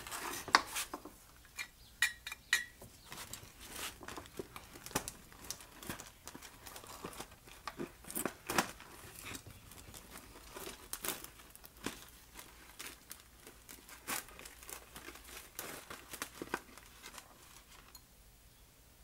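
Scattered clicks and light metallic clinks of a Holley 1920 one-barrel carburetor's small parts being handled and set down during disassembly, with some crinkling. The clicks thin out near the end.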